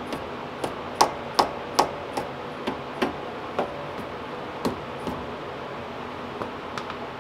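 Brembo front brake caliper being tapped with a hand tool, about a dozen sharp taps at uneven intervals over five seconds, loudest a second or two in: knocking trapped air bubbles loose while the brakes are bled.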